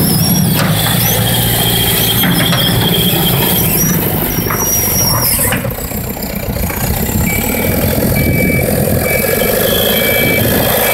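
Wille compact wheel loader's diesel engine running close by, with high squeals from the machine over the engine sound. From about seven seconds in, its reversing alarm beeps repeatedly at an even pace.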